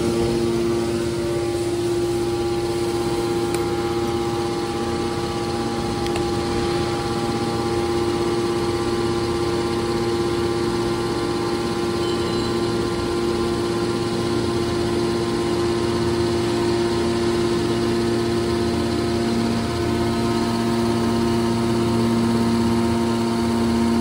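Electric motor and hydraulic pump of a scrap metal baler's power unit running steadily: an even machine hum with several steady tones.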